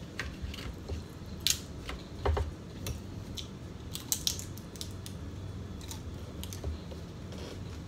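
Close-mic eating sounds: a person biting and chewing food, with scattered crisp clicks and crunches, the sharpest about one and a half seconds in and a quick cluster about four seconds in.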